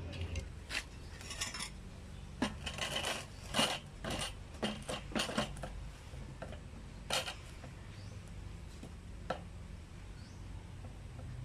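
Light metallic clinks and clanks of steel frame parts being handled and knocked together. A quick flurry of sharp strikes comes in the first half, then a few scattered knocks.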